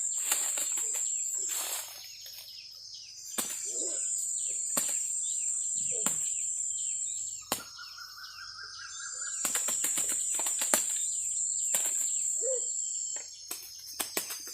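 Cicadas or other insects buzzing in a steady high-pitched drone that stops and starts again, with a lower insect tone for a couple of seconds near the middle. Scattered short bird chirps and clicks come through throughout.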